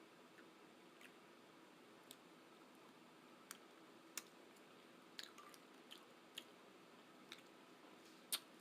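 A person eating close to the microphone: faint wet mouth clicks and chewing noises at irregular intervals over a low steady hiss, with one louder click near the end.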